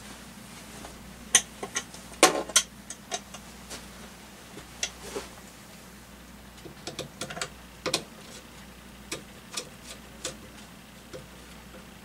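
Scattered sharp clicks and knocks of small hard parts being handled, in clusters about a second in and again past the middle, over a steady low hum.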